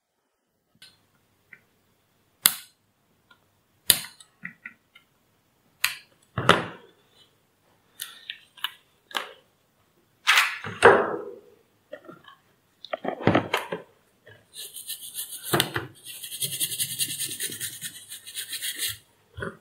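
Scattered sharp clicks and knocks of tools and board being handled during soldering work on a circuit board. Near the end comes about four seconds of steady, scratchy rubbing.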